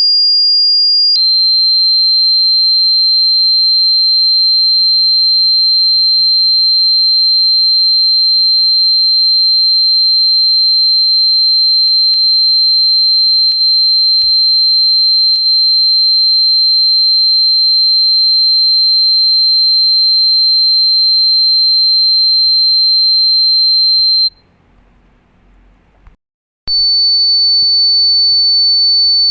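Loud, steady, high-pitched electronic tone played as a mouse-repellent sound. It steps down slightly in pitch about a second in and holds there, cuts off after about 24 seconds, and after a short gap a slightly higher tone comes back near the end.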